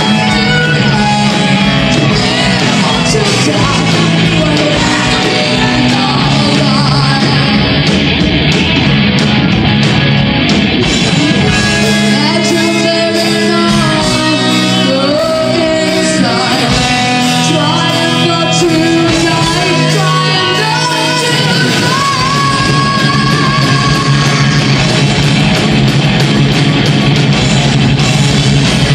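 Heavy metal band playing live: distorted electric guitars, bass and drum kit, with vocals over them, and melodic guitar lines moving up and down through the middle of the passage.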